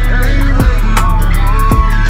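Music with a steady beat and deep bass.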